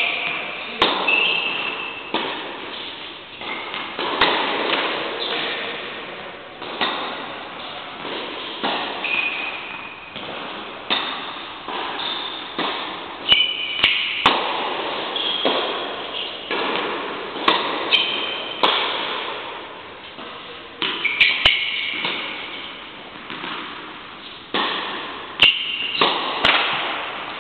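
Tennis balls struck by rackets and bouncing on an indoor court, a sharp pop every second or so, each echoing through the large hall. Short high squeaks of shoes on the court surface come in between.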